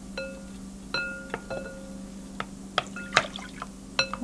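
A stirring utensil clinking irregularly against a glass mixing bowl as eggs are beaten, the bowl ringing briefly after each tap. Liquid is poured into the bowl near the end, over a low steady hum.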